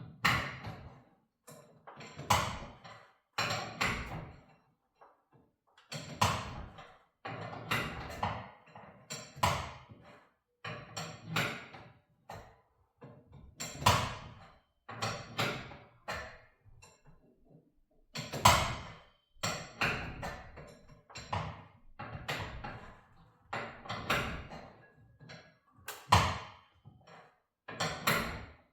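Steel winding bars clanking in the winding cone of a garage door torsion spring as it is wound up a turn at a time: a sharp metallic clank, some with a short ring, roughly every one to two seconds.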